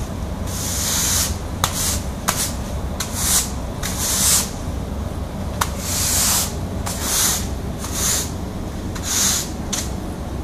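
Push broom bristles sweeping oil-soaked absorbent granules across a concrete floor, in repeated strokes of scratchy swishing about once a second, with a few sharp taps between strokes.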